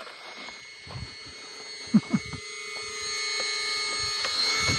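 Electric RC basher truck's motor whining steadily as it drives, getting louder from about three seconds in, with a couple of short blips around two seconds in.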